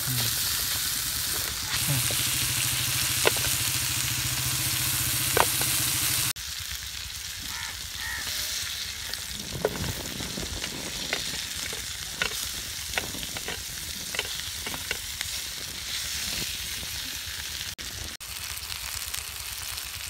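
Dove-meat kebab patties frying in butter and ghee in a flat pan, sizzling steadily, with a steady low hum under the first few seconds. After a cut about six seconds in, the sizzle is quieter and broken by scattered pops and crackles of spattering fat.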